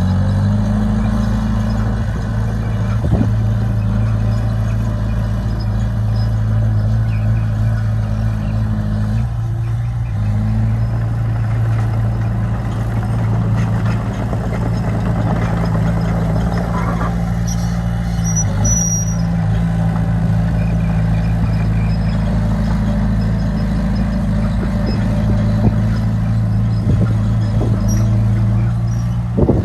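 Heavy diesel engine of earthmoving equipment running under load, its pitch shifting a few times as the throttle changes, with a few brief knocks.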